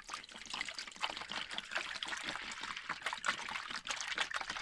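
Water poured from a plastic bottle into a plastic pigeon drinker, splashing and bubbling steadily as it fills.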